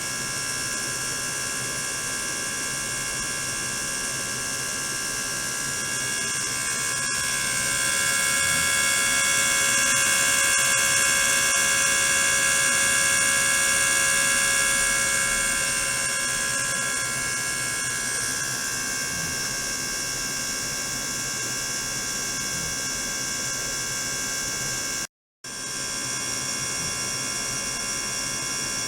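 Ultrasonic tank with a small pump circulating the water, running: a steady high whine made of many held tones. It swells louder for several seconds in the middle, then settles back, and cuts out for a moment near the end.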